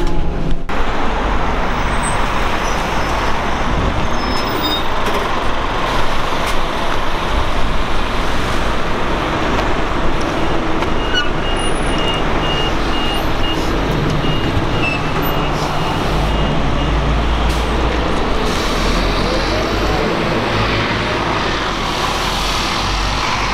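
City bus and street traffic noise: a steady rumble of the bus engine and road noise, with a run of short high beeps about halfway through.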